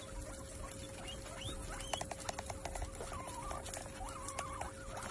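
A large group of guinea pigs squeaking with short rising and falling calls over the rustle and crunch of them feeding in hay, with a quick run of sharp clicks about two seconds in. A faint steady hum runs underneath.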